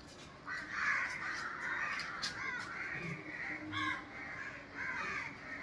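Crows cawing over and over in a run of harsh calls.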